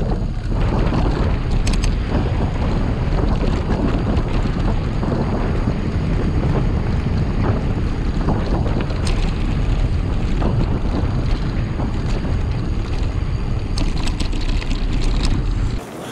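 Wind rushing over the microphone of a camera on a moving bicycle riding a dirt forest track, with scattered clicks and rattles from the bike going over bumps. The noise drops suddenly near the end.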